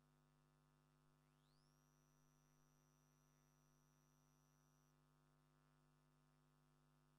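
Near silence: a faint steady electrical hum, with a very faint high tone that glides up about a second in, holds steady, and stops about five seconds in.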